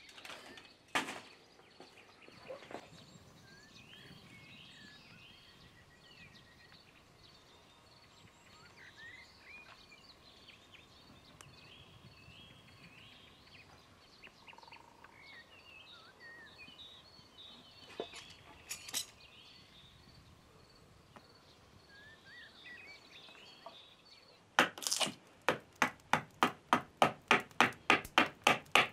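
Faint birdsong with a few scattered knocks, then near the end a run of rapid, evenly spaced hammer blows, about three a second.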